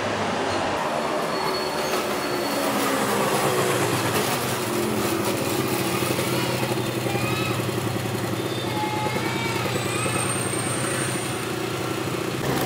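A train running with a steady low hum, and a brief high squeal about ten seconds in.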